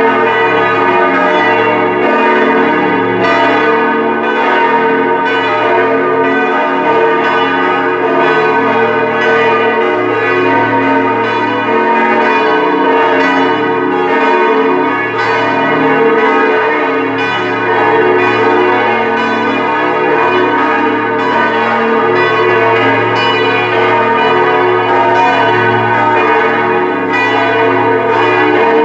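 Full peal of four Grassmayr church bells, tuned B-flat, E-flat, G-flat and A-flat, swinging together, their overlapping strokes making a continuous ringing: the plenum that calls the faithful to mass.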